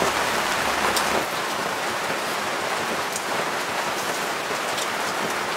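Lamb skewers sizzling on a charcoal grill after oil has been sprinkled over them: a steady hiss with a few sharp pops.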